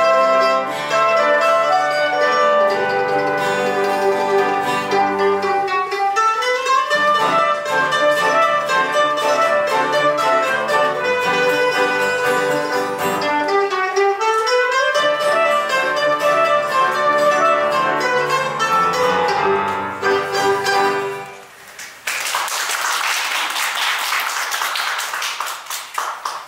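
Guitar, mandolin, piano and clarinet quartet playing the closing bars of an instrumental piece, with two quick rising runs along the way. The music ends about 21 seconds in and audience applause follows.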